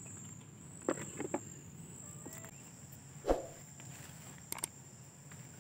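Faint steady high-pitched insect drone, with a few soft knocks and taps from plastic toys being handled.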